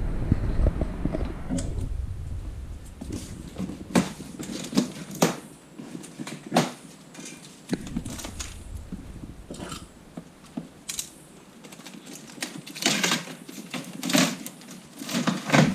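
Irregular clicks and knocks of handling noise, with a low rumble fading out over the first couple of seconds. The knocks come more often and louder near the end.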